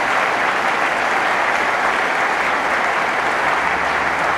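Audience applauding steadily, a dense even clapping that does not rise or fade.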